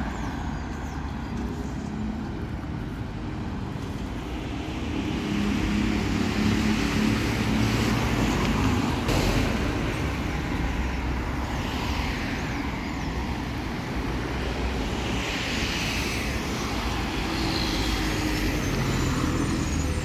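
Road traffic on a multi-lane avenue: cars passing, a steady rumble of engines and tyres that grows louder from about five seconds in as vehicles go by.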